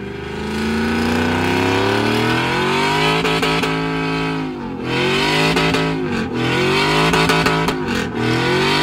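Engine of a lowered single-cab pickup truck being revved through its side-exit exhaust: the revs climb over the first couple of seconds and hold, then drop and climb back again three times.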